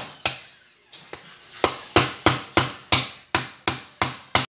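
Small hammer cracking a cooked crab claw on a wooden cutting board: a run of sharp knocks, a few spaced ones and then a steady beat of about three a second, stopping suddenly near the end.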